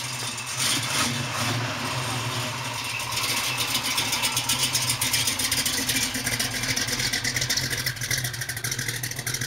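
A car engine running steadily, with rapid even firing pulses that grow plainer from about three seconds in.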